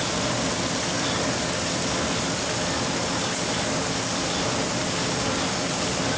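Sheet-fed paper shopping bag machine running at production speed, its rollers and drive giving a steady, even mechanical noise with a faint low hum.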